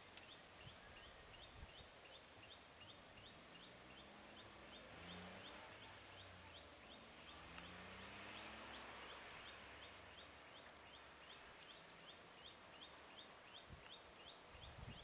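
Near silence: quiet roadside ambience with a faint high chirp repeating about three times a second. A faint engine hum rises and falls through the middle.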